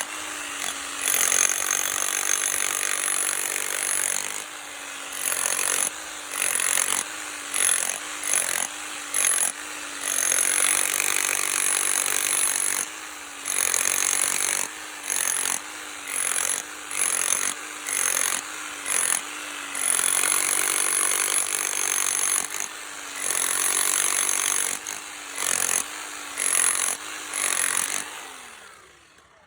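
Power tool working concrete in repeated bursts of about one a second, its motor pitch dipping each time it bites, then fading out near the end.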